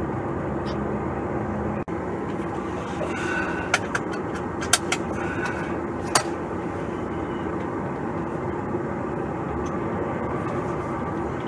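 Semi-truck's diesel engine running steadily, heard from inside the cab, with a few sharp clicks between about four and six seconds in.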